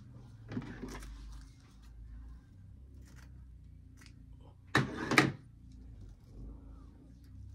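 Handling noise from hands arranging items and mesh ribbon in a wicker gift basket: rustling and light knocks, with a short rustle just under a second in and a louder double rustle about five seconds in.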